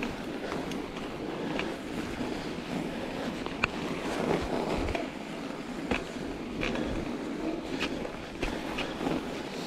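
Mountain bike riding over packed snow on studded Schwalbe Ice Spike tyres: a steady rushing of tyres and wind on the microphone, with irregular sharp clicks and knocks.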